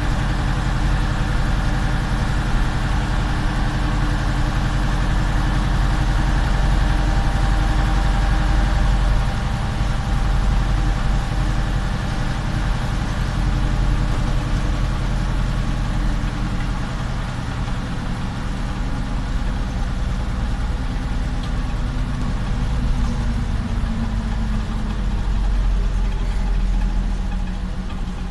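Diesel engine of a Jelcz 043 bus running while the bus drives, heard from inside the cabin; it runs steadily at first, then its pitch sinks slowly over the last several seconds.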